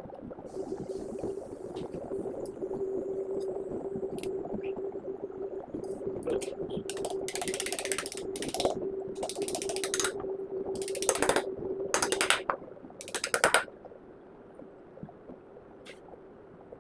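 Ratchet screwdriver clicking in six short, fast bursts as it tightens the long through-bolts holding the end cover on a small water cooler motor, starting about seven seconds in, over a steady hum.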